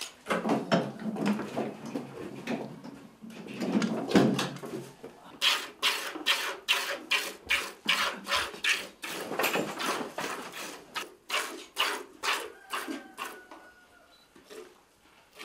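Milk squirting from a Holstein cow's teats into a plastic bucket during hand milking, in a steady rhythm of about two to three squirts a second that thins out near the end. A duller, lower rumble and handling noise fill the first few seconds.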